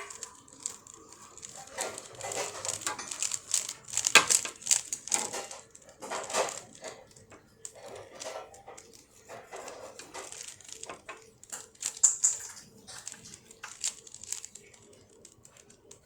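Plastic Rubik's Cube being twisted by hand: irregular clicks and scraping as its layers are turned, busiest in the first half.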